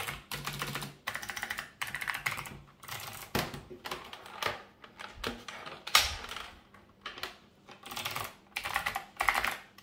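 Typing in short bursts on a Zeos keyboard with NMB clicky black Space Invaders switches, a rapid run of crisp key clicks. One single loud clack stands out about six seconds in.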